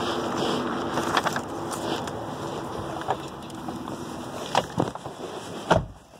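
Phone handling noise and a few light clicks as a person walks to a car and climbs in, ending in a heavy thump of the car door shutting near the end, after which the outside sound drops away.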